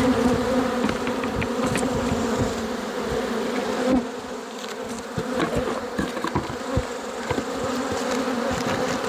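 Bee Weaver honey bees buzzing in a loud, steady hum in the air around an opened hive, stirred up by the inspection. A few short knocks, the sharpest about four seconds in.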